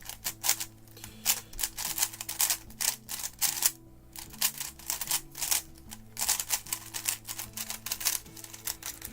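GAN 11 Air, a non-magnetic 3x3 speedcube, being turned fast during a timed solve: a rapid, irregular run of plastic clicks and clacks, with a brief pause about four seconds in.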